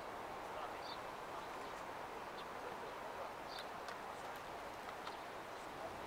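Steady outdoor city ambience, a low even hum, with two faint short high chirps a few seconds apart.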